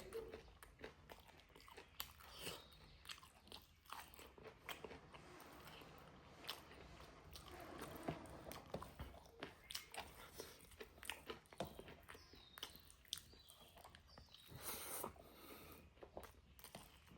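A person chewing and biting food close to the microphone, faint, with many small irregular mouth clicks and crunches.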